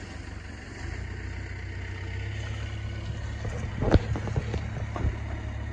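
Kubota L2050 compact tractor's small diesel engine idling with a steady low rumble, with a sharp knock about four seconds in and a lighter one a second later.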